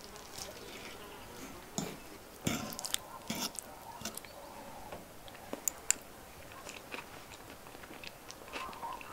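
A person eating: bites and chewing, with scattered sharp clicks and short crunches.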